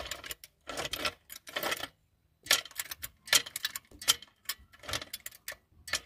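Bursts of rapid metallic clicking and light clatter, a ratchet-like ticking, from the jack and hand tools being worked under the car's engine.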